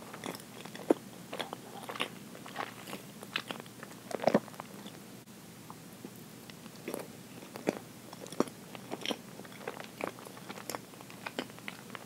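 Close-up chewing of soft chocolate roll cake with cream, picked up by a clip-on microphone: many small wet mouth clicks and smacks at an uneven pace, with a few sharper clicks about a second in and just past four seconds.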